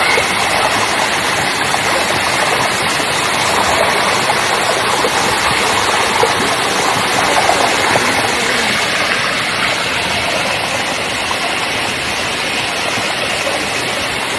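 Loud, steady rush of water falling at a waterfall, with no letup.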